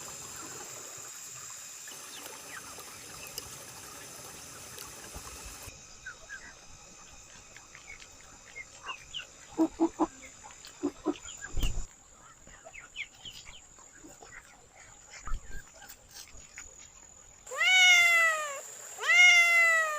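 A cat meowing twice near the end, two loud calls about a second long that each fall in pitch. Before them come a steady hiss for the first few seconds and then faint small clicks and scuffles.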